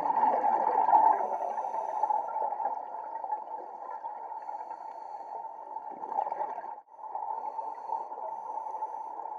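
Underwater ambient noise picked up through a diving camera's housing: a steady watery hiss with gurgling swells about a second in and again around six seconds, broken by a brief dropout near seven seconds.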